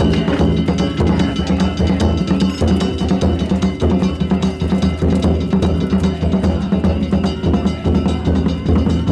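Danjiri float's festival percussion: a taiko drum and small hand gongs beaten in a fast, unbroken rhythm, the gongs ringing over the drum.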